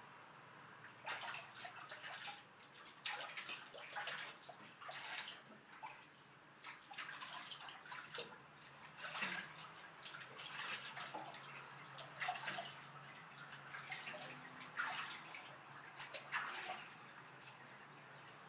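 Water splashing and sloshing in a stainless steel sink as a cat is washed by hand: irregular splashes that start about a second in and die away shortly before the end.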